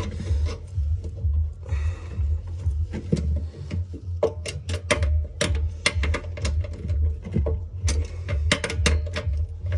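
Metal sump plug key clicking and clinking against the drain plug as it is worked loose on a Briggs & Stratton 35 Classic engine: a run of irregular sharp clicks, busiest in the second half, over a steady low hum.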